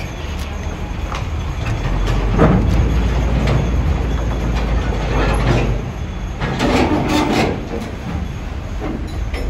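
Heavy truck's diesel engine rumbling under load as the tractor-trailer rig creeps over the ferry's steel loading ramp, with loud clanks and rattles from the steel ramp a few seconds in and again around the middle.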